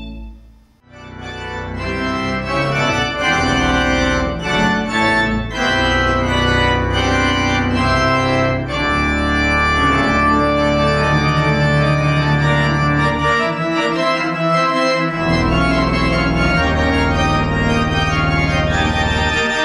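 Rodgers organ playing full sustained chords over a deep pedal bass. The music starts about a second in after a brief near-silent gap, and the bass drops out briefly about two-thirds of the way through.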